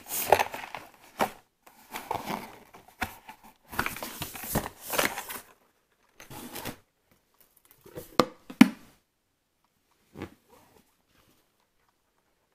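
A hard-shell curling-iron case being lifted out of its cardboard box: irregular rustling and scraping of packaging for the first five seconds or so, then a few light knocks about eight and ten seconds in.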